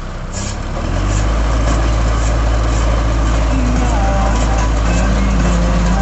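Kubota MU4501 four-cylinder diesel tractor engine running under load while driving a round baler picking up straw, a loud, steady low rumble that grows louder about a second in.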